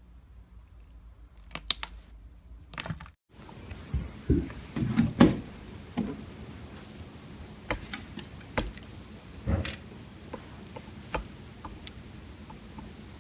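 Hands squishing and pressing slime, with sticky squelches and sharp little pops and clicks. A cluster of soft squelches comes about four to five seconds in, and single clicks follow every second or so.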